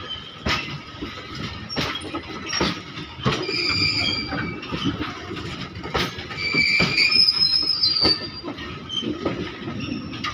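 Open-top freight wagons of a long goods train rolling past: wheels knocking over rail joints at uneven intervals, with a high metallic squeal twice, the louder one a little past the middle.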